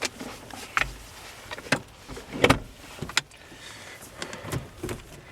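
Gear lever of a Honda Civic Type R FN2's manual gearbox being moved through the gates, giving about seven short clicks and clunks at uneven spacing. The loudest clunk comes about halfway through.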